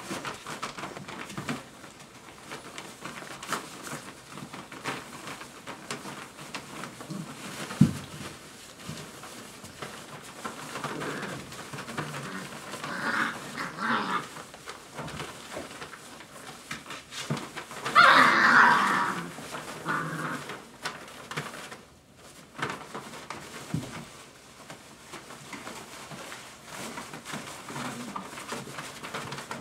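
Five-week-old Dogo Argentino puppies whining, on and off, loudest in a burst about eighteen seconds in. Paper rustles and small knocks come from them moving in the whelping box, with one sharp knock about eight seconds in.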